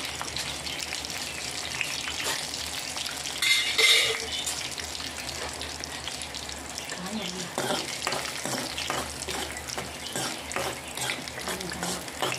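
Cashew nuts frying in ghee in an aluminium kadai, a steady sizzle. About three and a half seconds in there is a brief louder metallic clatter, and in the later part a spoon stirs the nuts.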